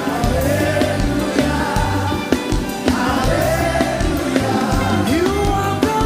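Live gospel worship music: voices singing a held, swooping melody over a band with bass and drums keeping a steady beat.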